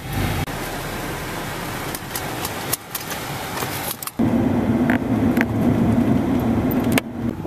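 Car engines running as vehicles drive over snow, in several short shots that cut off abruptly; from about four seconds in, a louder, steady engine note.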